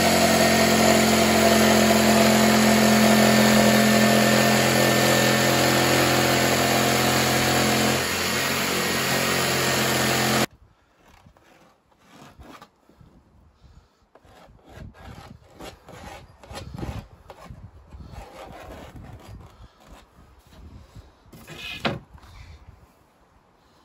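Electric jigsaw running and cutting through a fibreboard sheet, a steady motor whine that drops slightly in level near the end of the cut and stops suddenly about ten seconds in. After it come quiet scrapes and knocks of wooden battens being handled on the board, with one sharp knock near the end.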